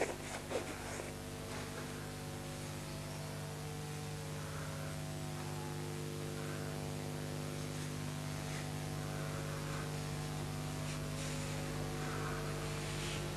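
Steady electrical hum with several overtones over a faint hiss, unchanging throughout.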